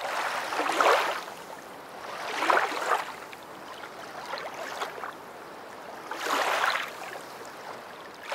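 Water ambience laid over the end screen: washes of water noise that swell and fade about every two seconds.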